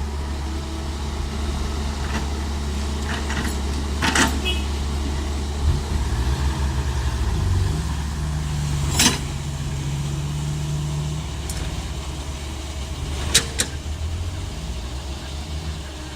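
Diesel engine of a CAT E120 excavator running steadily, its pitch rising and holding for a few seconds around the middle. Sharp clanks come about four seconds in, again near nine seconds, and twice close together near the end.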